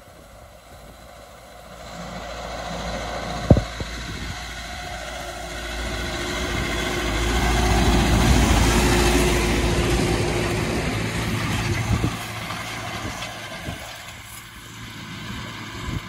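Massey Ferguson 3710 tractor engine working under load as it pulls a disc harrow through the soil, growing louder as it comes close, loudest about eight to ten seconds in, then fading as it moves away. A single sharp knock sounds about three and a half seconds in.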